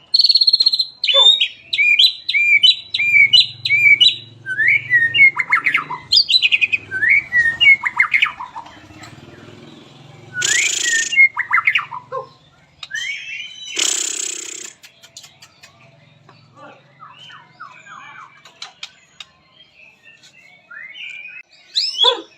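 White-rumped shama (murai batu) singing. It opens with a quick run of repeated whistled notes, then moves into varied gliding phrases, broken by two loud harsh bursts about ten and fourteen seconds in.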